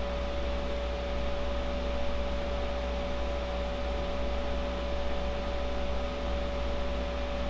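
EKWB Vardar PC cooling fan running at about 2,140 rpm in a close-up noise test: a steady rush of air with a clear steady tone over it and a low hum beneath. It reads about 55 dB on a sound level meter held close.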